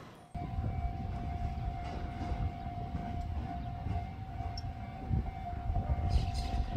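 Steady single-pitch hum over a constant low rumble at a station platform where an electric train stands, with a few light clicks near the end.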